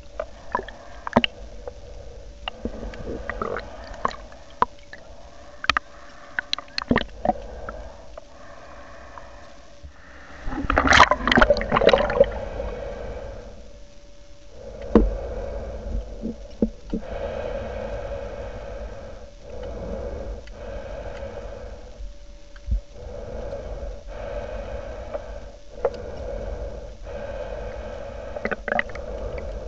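Muffled underwater sound of a snorkel swim: water gurgling and sloshing, scattered clicks and knocks, and a loud splashing rush about eleven seconds in. In the second half a muffled swell comes back every two to three seconds, the swimmer breathing through the snorkel.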